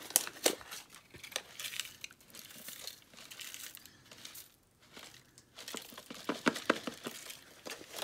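Crinkling and rustling of a toy blind-bag's foil wrapper and plastic capsule being handled and opened, with scattered sharp clicks and a lull of about a second past the middle.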